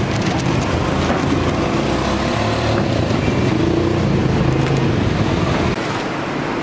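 Street traffic: motor vehicles and motorbikes running past in a steady, dense rumble. The low rumble drops away near the end.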